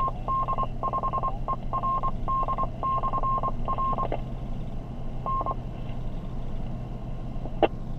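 Tone beeps from a ham radio receiver: one steady pitch keyed on and off in a run of short and long beeps for about four seconds, then a single short beep and a click near the end, over a low hum and hiss.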